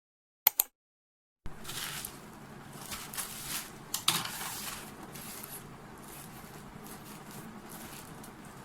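Rustling and light knocking from a parcel being handled, a few soft bursts of rustle with small taps over a steady room hiss.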